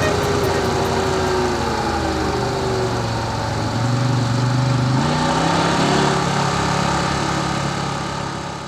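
Side-by-side UTV engine running while under way. Its pitch eases down, then climbs again about five seconds in, and the sound fades out near the end.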